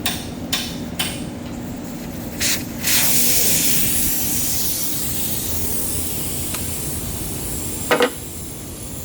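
Compressed air hissing: a few short bursts in the first seconds, then a steady loud hiss from about three seconds in. A sharp double knock sounds near the end.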